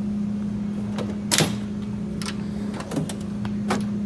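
Metal tool cart drawers being shut and pulled open: a sharp clack about a second in, then a few lighter knocks and rattles of tools, over a steady hum.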